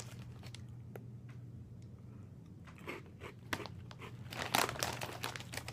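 Cheez-It Crunch'd puffed cheese snacks being bitten and chewed: a few faint clicks, then a run of crisp crunches from about halfway through, over a low steady room hum.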